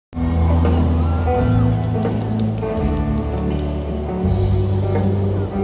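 Live pop-rock band music, with deep sustained bass notes changing every second or two under higher held notes.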